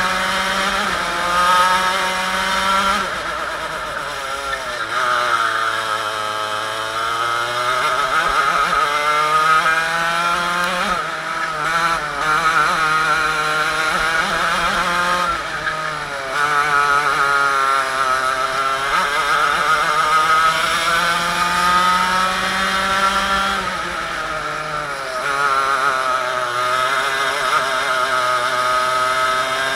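Two-stroke TKM kart engine heard from onboard, its revs falling into each corner and climbing back up on the straights, several times over.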